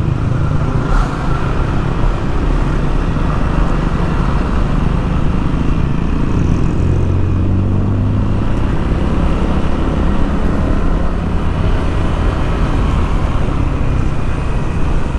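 Yamaha NMAX 155 scooter's single-cylinder engine running steadily while riding, under heavy wind noise on the microphone.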